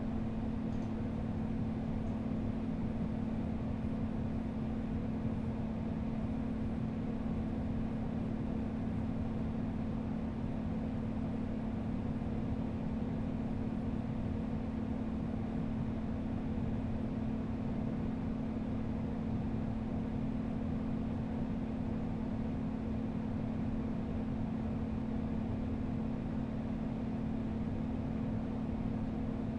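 Air conditioner running steadily: a constant low hum with an even rush of air, unchanging throughout.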